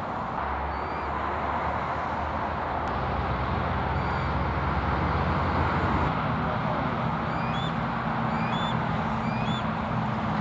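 Juvenile bald eagle giving thin, high chirping peeps, a few scattered at first and then a quick series of five or six about seven seconds in, over a steady rumble with a low hum underneath.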